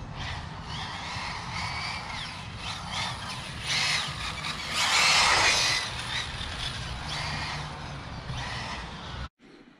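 Losi 8IGHT-E 4.0 electric RC buggy running on asphalt, its motor whining up and down in pitch as it accelerates and slides through turns. There is a louder rush of noise around four to six seconds in, and the sound cuts off abruptly near the end.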